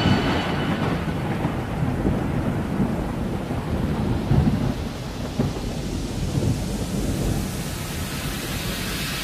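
Thunder rumbling over steady rain: a storm recording in the soundtrack, with no music playing.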